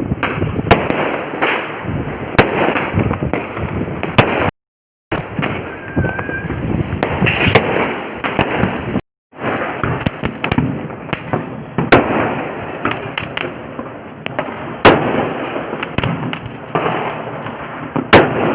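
Diwali firecrackers going off: a dense, continuous crackling of many small bangs, with louder single bangs scattered through. The sound cuts out completely twice for a moment, about a quarter and half way through.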